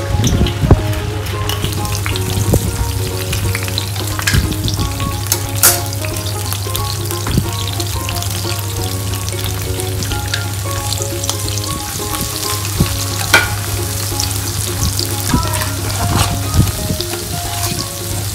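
Oil sizzling steadily in a ceramic-coated frying pan with garlic and rosemary, with scattered sharp clicks and taps as sliced mushrooms and then a pat of butter go into the hot pan.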